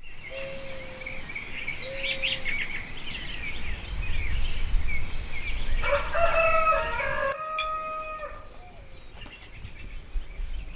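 Rooster crowing once, a long call about six seconds in, over small birds chirping in an open rural ambience.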